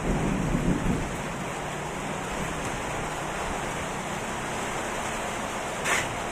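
Heavy rain pouring steadily, with a low rumble of thunder swelling in the first second. There is a short, sharp crack near the end.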